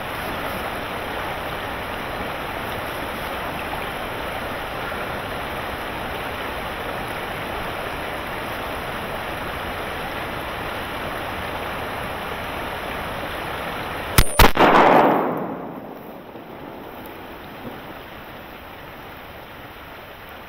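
A steady rushing noise like wind on the microphone, then about 14 seconds in a single sharp, loud shot from a 20-gauge shotgun that rings out and fades over about a second.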